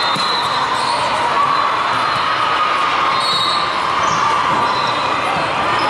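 Steady din of a large sports hall with volleyball play going on, a serve struck near the start, then a rally, with brief high shoe squeaks on the court floor.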